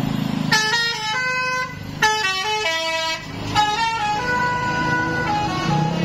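Tour bus's musical "telolet" air horn playing a tune: three phrases of several-note horn chords stepping from pitch to pitch, starting about half a second in. The bus engine's low hum comes back near the end as the horn stops.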